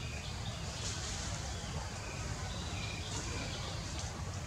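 Outdoor ambience: a steady low rumble with a few faint, short, high chirps scattered through it.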